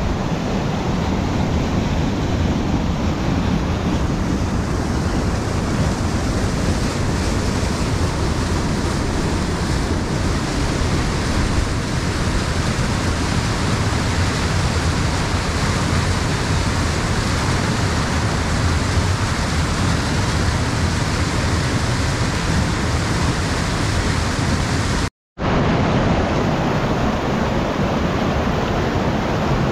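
Rushing mountain river pouring over boulders and small cascades: a steady, loud rush of water. It cuts out for a moment near the end.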